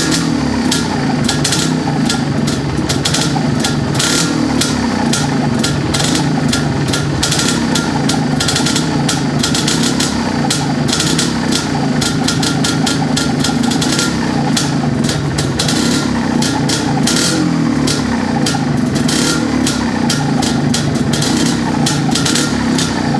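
Freshly rebuilt MZ ETZ single-cylinder two-stroke motorcycle engine running at idle on a stock reproduction exhaust, its note wavering slightly up and down.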